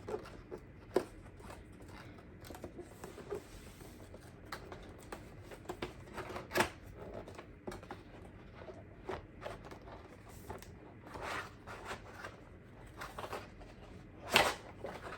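A keyboard's cardboard box and packaging being opened and handled: scattered rustling, scraping and small clicks, with a few sharp knocks, the loudest near the end.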